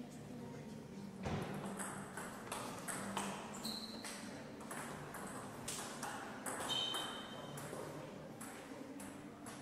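A table tennis rally: the plastic ball clicking sharply back and forth off the bats and the table in a quick run from about a second in until about seven seconds, with two brief high squeaks during the play.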